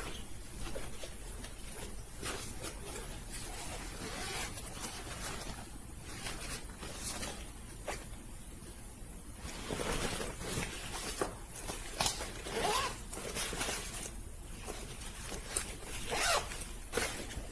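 Suitcase zipper being pulled in a series of separate strokes with pauses between them.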